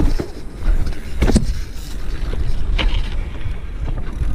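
BMX bike being ridden over pavement: a steady low rumble of rolling, with two sharp knocks about a second and a half and three seconds in.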